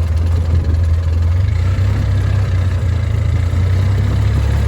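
A vehicle engine idling steadily, heard as a constant low drone.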